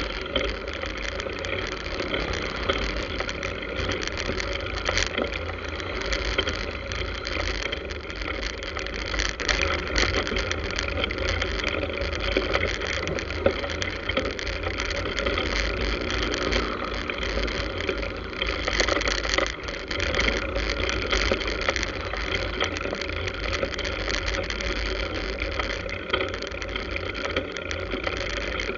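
Wind rushing steadily over a bicycle-mounted camera's microphone while riding, with motorbike and car traffic close by; a passing engine hum shows about sixteen seconds in.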